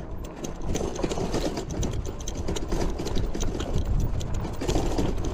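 Bicycle with no front or rear suspension rattling and clattering over a bumpy dirt trail, its handlebar basket and parts jolting in quick irregular clicks over a steady low rumble from the tyres.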